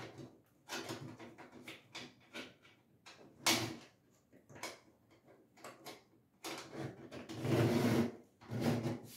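Metal sink mounting clips clicking and knocking against the stainless steel sink rim and countertop underside as they are worked into place by hand. There is an irregular run of small knocks, a louder clack about three and a half seconds in, and a longer rustling scrape near the end.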